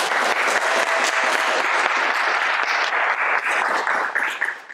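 Applause, many hands clapping together, starting suddenly and cutting off abruptly near the end.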